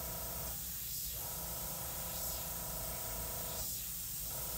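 Airbrush hissing steadily with the air kept on while paint is sprayed in dot-and-dagger strokes; the hiss thins briefly twice, about half a second in and again near the end.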